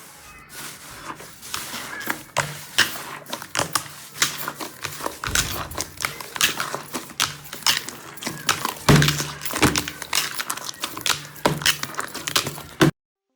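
Slime being squished and poked: a dense run of wet clicks and pops that stops abruptly near the end.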